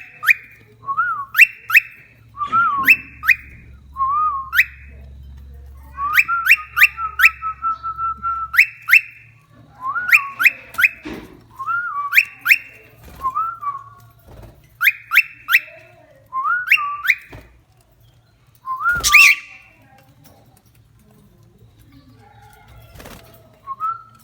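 Cockatiel whistling a repeated short tune: a held note with quick rising upsweeps, often three or four in a row, phrase after phrase, with a few pauses.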